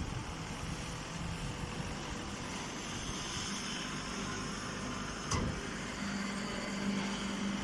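Steady mechanical running noise from a straw baling line: a vertical hydraulic baler, its belt conveyor and a straw shredder. A low hum comes up in the second half, and there is a single brief knock just after five seconds in.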